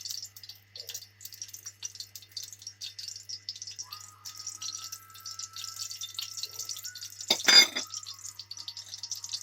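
Desi ghee heating in a pan, crackling with many quick, irregular small pops. About seven and a half seconds in there is one brief, much louder noise.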